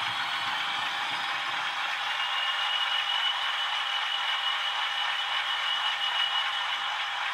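Several OO gauge DCC sound-fitted model diesel locomotives (Class 37, Class 50s and a Class 66) idling together through their onboard speakers, a steady mechanical chorus, with a thin high whine holding from about two seconds in until near the end.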